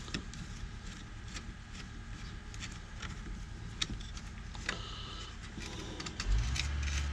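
Light clicks, taps and rattles of hand work on a truck's steering column as the old turn signal lever is taken off. A steady low hum comes in about six seconds in.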